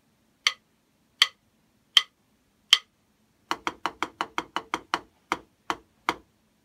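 Drumstick strokes: four evenly spaced clicks as a count-in, then a struck rhythm of eight quick sixteenth-note strokes (two 'onigiri' groups) followed by four eighth-note strokes ('ta ta ta ta'). The count-in clicks are thinner and brighter than the fuller strokes of the rhythm.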